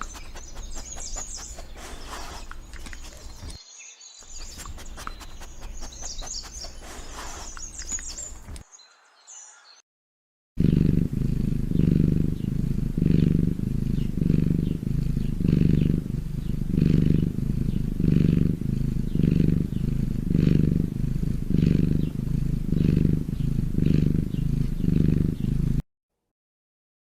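A cat purring close to the microphone, a low rhythmic purr pulsing about one and a half times a second and cutting off near the end. Before it comes a few seconds of unclear clicking and high chirping, then a brief silence.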